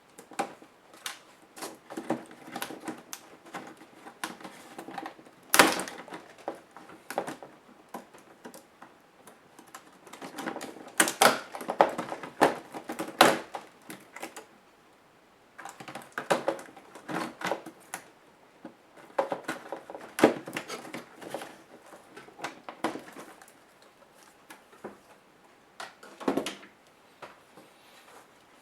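Irregular clicks, taps and small knocks of plastic and metal laptop parts being handled and pried apart by hand. One sharp knock comes about five and a half seconds in, and a busier run of clicks falls around the middle.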